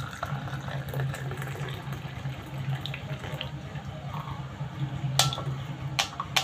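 Hot chai being poured from a steel saucepan through a plastic tea strainer, a steady trickle of liquid. Near the end come a few sharp metallic taps as the upturned pan is knocked to drain the last of the tea.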